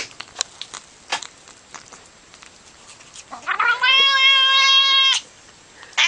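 A cat's long meow that rises at first, then holds one steady pitch for nearly two seconds before cutting off sharply. A few faint clicks come before it.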